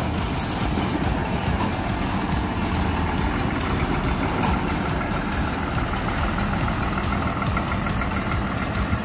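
Coach bus's diesel engine running as the bus turns out onto the road and pulls away.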